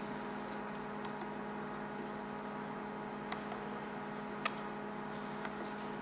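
Steady electrical mains hum, with a few faint clicks scattered through it.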